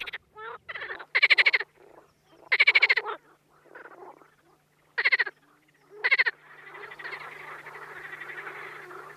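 Male marsh frogs giving breeding-season mating calls: several separate rattling croaks of about half a second each, then from about six seconds in a continuous chorus of many frogs.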